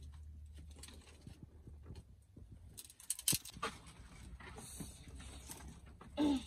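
Dry firewood sticks being handled on a clay hearth: light clattering and knocks, with one sharp crack about three seconds in. Just before the end comes a brief, loud, pitched call.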